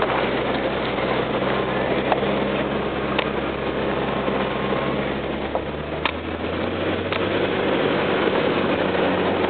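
Rear-wheel-drive pickup truck running along a gravel dirt road, heard inside the cab: steady engine hum under tyre and road noise, with a few sharp knocks from stones or bumps, the loudest about six seconds in. The engine note shifts lower about six seconds in.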